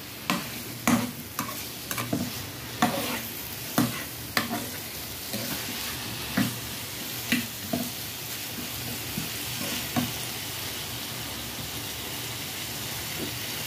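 Perforated metal spatula scraping and knocking against a kadai as boiled lotus-stem pieces are stirred through thick fried masala, over a steady sizzle. The scrapes come about every half second for the first few seconds, then more sparsely.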